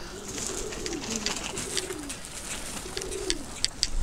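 Domestic pigeons cooing: a run of low coos that swell and fall, overlapping one another, over a scatter of short high ticks.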